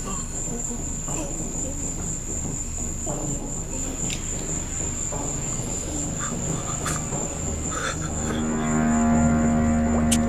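Crickets chirping in a steady high-pitched trill over a low hum, with a few faint clicks. Music with held tones comes in about eight seconds in.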